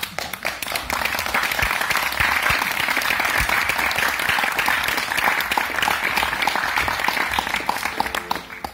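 Audience applauding: dense, steady clapping from many hands that starts suddenly and cuts off suddenly near the end.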